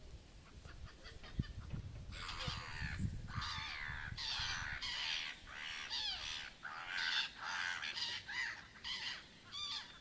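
A flock of gulls calling, harsh cries that overlap in quick bursts, some falling in pitch, starting about two seconds in.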